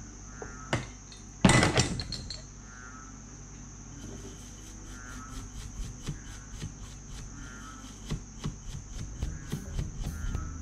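Cotton swab scrubbing a circuit board, heard as short scratchy strokes a few times a second that start about four seconds in and come faster and louder near the end. A single loud clatter about a second and a half in.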